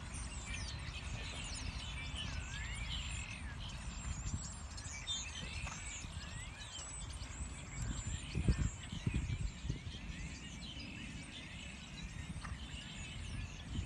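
Small birds chirping and singing over a steady low wind rumble on the microphone, with a few dull thumps about eight to nine seconds in.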